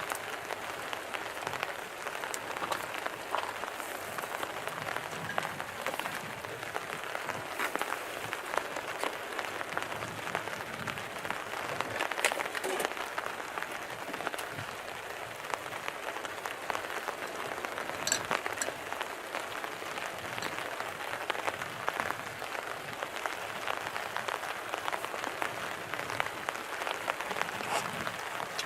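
Bean sprouts and tomato stir-frying with garlic in a pan over a fire: a steady sizzle full of small crackles and pops.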